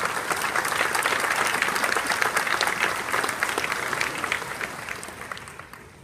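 Audience applause, many hands clapping together, dying away over the last second or so.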